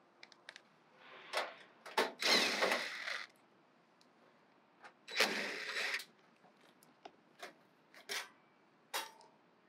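Hand-handling noise in the open electrical compartment of a package air-conditioning unit: scattered clicks and light knocks, with two louder rustling or clattering bursts of about a second each, one about two seconds in and one about five seconds in.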